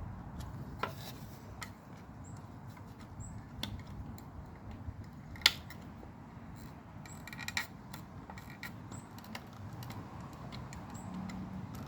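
Scattered small metallic clicks and scrapes of a hand tool working the folded-over metal tabs on an arm rest's chrome trim piece, with one sharper click about five seconds in.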